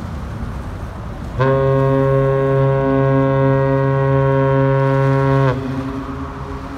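A container ship's horn sounds one long blast of about four seconds, a deep steady tone that starts about a second and a half in and sags slightly in pitch as it cuts off. Wind and water noise run underneath.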